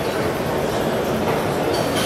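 Steady background din of a busy exhibition hall, an even rumble and hiss with no distinct events.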